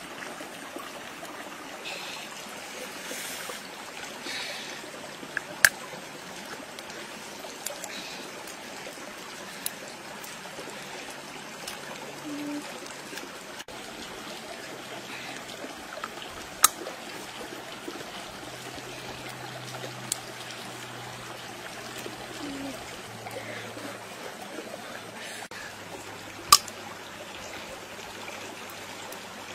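Water of a stream trickling steadily, broken by several sharp clicks, the three loudest spread through it, about a third of the way in, past the middle and near the end.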